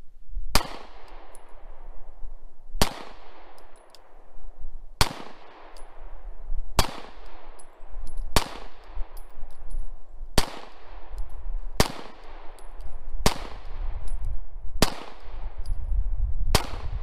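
A semi-automatic pistol fired ten times in slow, steady succession, a shot every second and a half to two seconds. Each shot is followed by an echo that fades over about a second.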